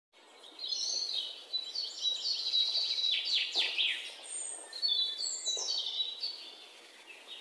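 European robin singing: high, thin whistles and trills in two varied phrases, the second starting about four seconds in.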